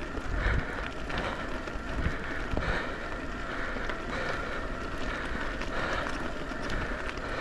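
Electric mountain bike being ridden down a dirt trail: steady tyre rumble and rattle with wind on the microphone, and a few knocks from bumps in the first three seconds.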